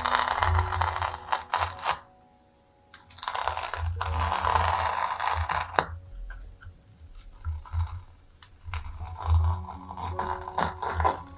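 Mechanical pencil lead scratching on paper in long sketching strokes, in three stretches with short pauses between, close and loud with a low rumble beneath the strokes.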